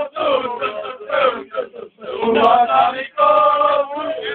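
A group of young men chanting a song together, loud, in sung phrases with a brief pause about two seconds in.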